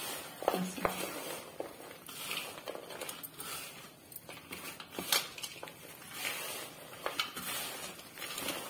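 Hands mixing a dry, crumbly mixture of roasted flour, crushed makhana and nuts in a plate: an uneven rustling and crunching, with a few sharp clicks.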